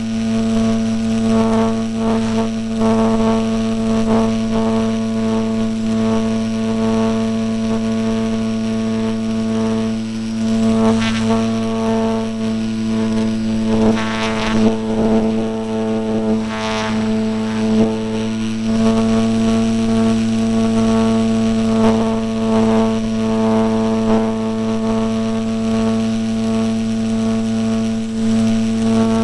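Electric motor and propeller of an E-flite Apprentice RC trainer plane, heard from a camera on the airframe: a steady, loud drone at one fixed pitch, with a few short surges of air noise midway.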